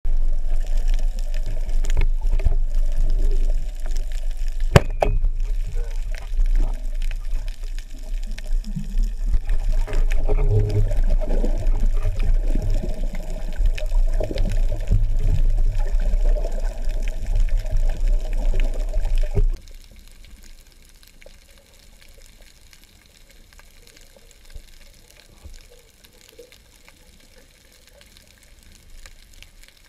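Muffled water rushing over an underwater camera, heavy and low, with a few sharp knocks. It drops suddenly about twenty seconds in to a faint hiss with light crackling.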